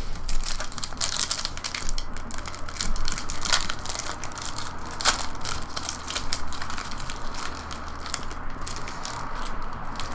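Plastic foil trading-card pack wrapper crinkling irregularly as it is handled and torn open, with sharp crackles throughout.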